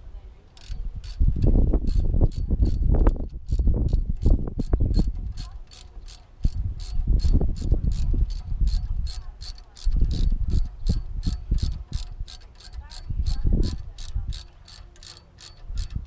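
Ratchet wrench clicking at a steady pace of about three to four clicks a second, over loud, uneven low rumbles.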